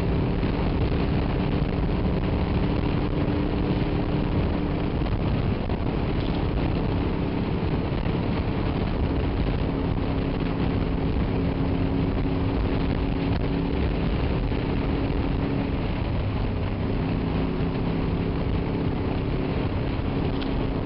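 Honda VFR motorcycle's V4 engine running at a steady cruise under a constant rush of wind and road noise. The engine hum fades for a few seconds about five seconds in, then holds steady again.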